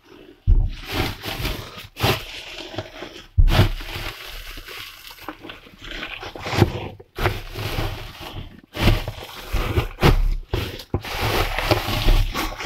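Plastic garbage bags rustling and crinkling as a hand pulls and squeezes them, with irregular dull thumps of handling.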